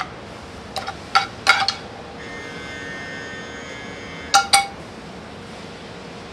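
A metal spoon clinking against a metal sauté pan while stirring and serving: a few sharp clinks in the first two seconds and two more just past four seconds. A faint, steady, high ringing tone sounds between them.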